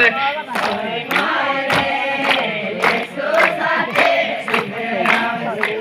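A group of voices singing the refrain of a devotional garba song together, over a steady percussive beat of about two hits a second.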